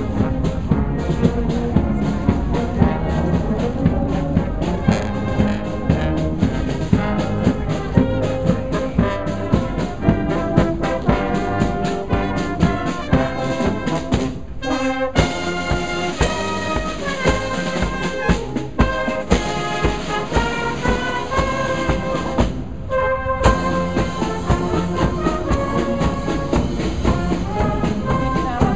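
Marching brass band playing a march: cornets and tenor horns carry the tune over a steady beat of bass drum and side drums. The playing breaks off briefly twice, about halfway through and again later.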